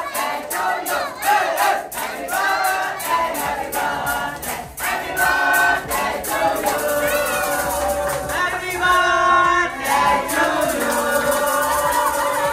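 A group of voices singing together over music with a steady beat.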